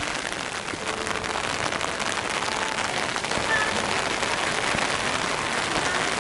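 Steady rain falling, a dense hiss of many small drop ticks.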